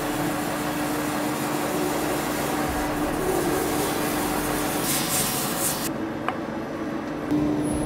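Metal-spinning lathe running with a steady hum as a large metal blank spins, while a bar of soap lubricant is rubbed against it; a louder hiss comes about five seconds in, then the sound drops and a single light click is heard.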